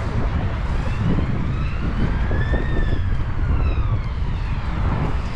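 An emergency vehicle siren wailing, its pitch rising slowly and then falling. Wind buffets the microphone with a low rumble throughout.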